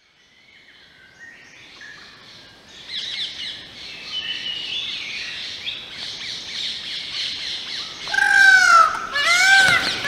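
Mixed birdsong fading in and building, then, from about eight seconds in, loud repeated calls that rise and fall in pitch, about one a second: Indian peafowl calling.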